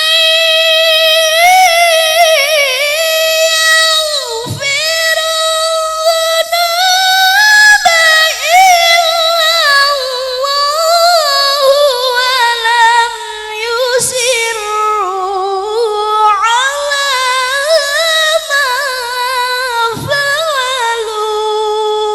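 A qari reciting the Quran in a single solo voice, a high, ornamented melodic line of long held notes with winding melismas, broken by a few short breaths.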